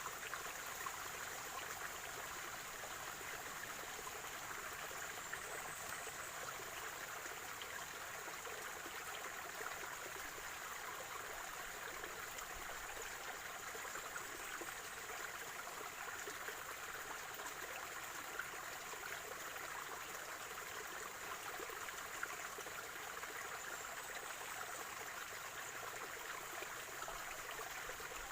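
Water of a small natural spring stream flowing and gurgling steadily.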